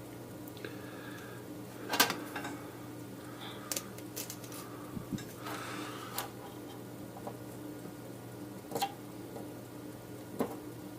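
Scattered small clicks, taps and brief scratches of tools being handled at a workbench, over a steady low hum. The sharpest click comes about two seconds in.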